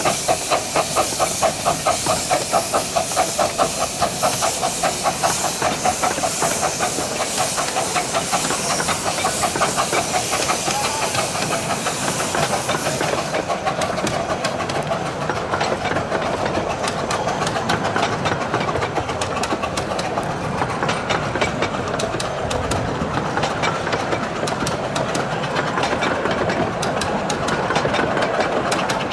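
A 15-inch gauge miniature steam locomotive working along the line: rhythmic exhaust beats, roughly three a second, under a loud steam hiss. About halfway through, the hiss stops suddenly and what remains is the train running, with a rapid clatter of wheels over the track.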